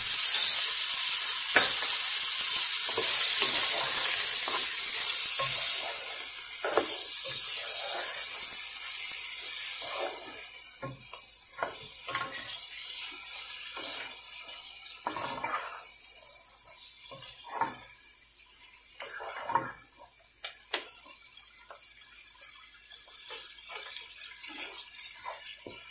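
Mutton, onions and ginger-garlic paste sizzling in hot oil in a pan while a wooden spoon stirs and scrapes them. The sizzle is loud at first and dies down over the first half, leaving scattered scrapes and taps of the spoon against the pan.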